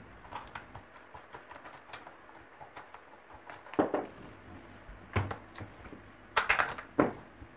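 Plastic housing parts of a Parkside hammer drill being pulled apart and handled: scattered light clicks with a few sharper knocks, the loudest cluster near the end.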